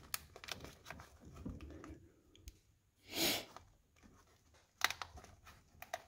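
Faint rustling and scattered small clicks of a wiring harness and its plastic loom being handled in a truck's engine bay, with a short hiss-like noise about three seconds in and a few quick clicks near the end.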